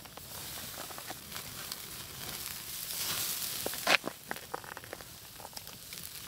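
Food sizzling as it fries, a steady hiss with scattered small pops and crackles. The hiss swells about three seconds in, and a sharp pop just before four seconds is the loudest sound.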